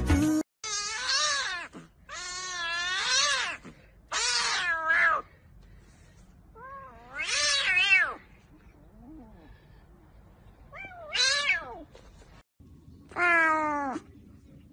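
A kitten meowing repeatedly: five long, wavering meows of about a second each. After a brief break, another cat gives one more meow near the end.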